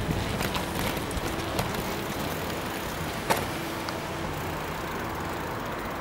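Street traffic: a steady hum of car noise, with a few light clicks and one sharp click about three seconds in.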